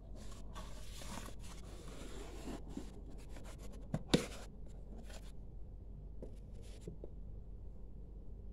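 Empty corrugated cardboard box being handled and folded by hand, its flaps and sides scraping and rustling irregularly, with one sharp knock about four seconds in. Only a few faint rustles follow.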